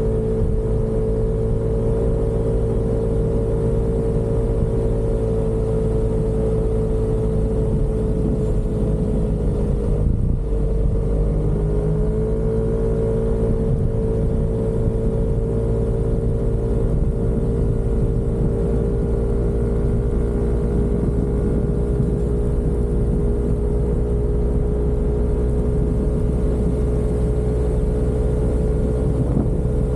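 Yamaha Aerox 155 scooter's single-cylinder engine running steadily at cruising speed. The engine note drops briefly about a third of the way in as the throttle eases off, then climbs back and holds.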